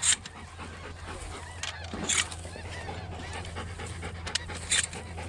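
Retriever dog panting in the blind after retrieving, with three louder breaths spaced a couple of seconds apart.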